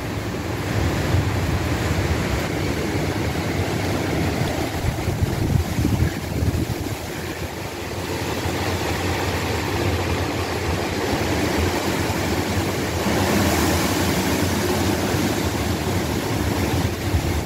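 Rain falling steadily with wind from a passing tropical storm, a low rumble of wind under the hiss of the rain. The hiss swells about three-quarters of the way in as the rain picks up.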